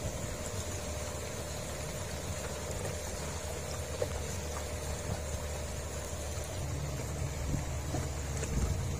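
Small boat's outboard motor running steadily under way, with wind and water noise over a choppy sea.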